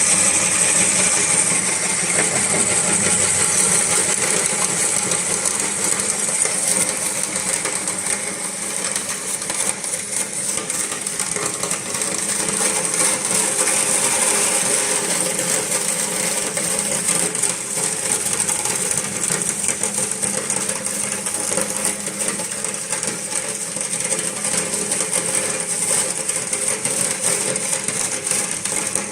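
Electric meat grinder running, starting abruptly, with a steady motor hum under a constant rapid clatter of hard plastic balls being crushed and cracking in the auger.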